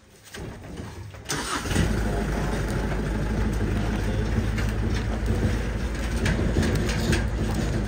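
An engine starts up about a second in and settles into a steady, low idle.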